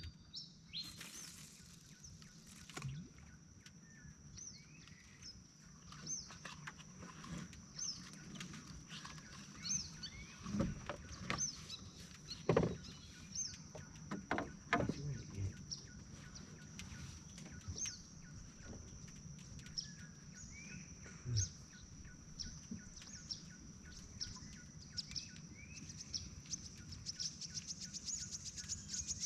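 Faint swamp-forest ambience: a steady high insect drone with short bird chirps repeating through it and a few knocks. Near the end a rapid ticking trill builds up.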